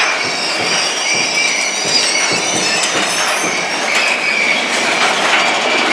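Mine-train roller coaster cars rumbling along the track, with the wheels squealing at a steady high pitch over irregular rattles and clacks.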